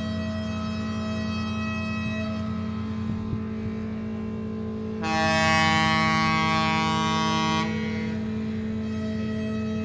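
A ship's horn sounds one loud, long blast of about two and a half seconds, starting about halfway through, over the steady low hum of ship engines running in the harbour.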